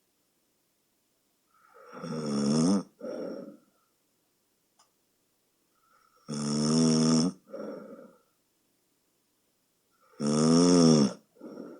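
A woman with sleep apnea snoring loudly in her sleep: three loud pitched snores about four seconds apart, each followed a moment later by a shorter, softer breath.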